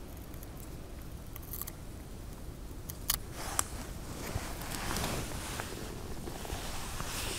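Faint handling sounds of a snap-off utility knife and a dry cattail stem: two sharp clicks about three seconds in, then soft rustling and scraping that grows a little louder toward the end.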